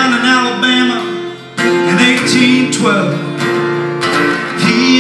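Acoustic guitar strummed in a country-folk song with singing over it, played live.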